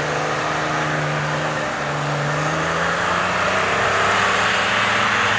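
Toyota Land Cruiser 80's engine running under load as it drives through deep snow, its note stepping up about two seconds in and rising a little toward the end, over a steady hiss of the tyres churning snow.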